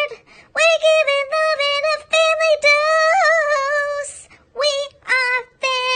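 A high, synthetic-sounding singing voice carrying a melody in long held notes, sung on its own with short gaps between phrases. A short breathy hiss comes about four seconds in.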